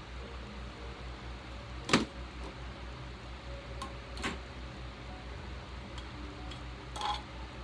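Sharp clicks and knocks of small metal dye tins being handled, the loudest about two seconds in and two more near four and seven seconds, over a steady low pulsing hum.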